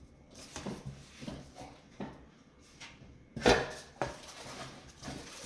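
Handling noises: scattered light knocks and rustles as a small affirmation booklet is handled close to the microphone, with one louder knock about three and a half seconds in.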